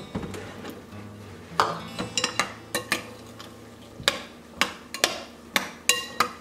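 Metal spoon stirring wet ingredients in a glass mixing bowl, clinking against the glass irregularly, with most of the clinks from about a second and a half in.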